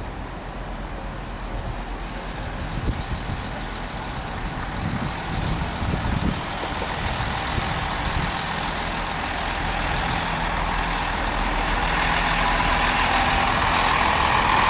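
Diesel multiple unit train running past, its underfloor engines humming and wheels rolling on the rails, steadily growing louder as it draws closer.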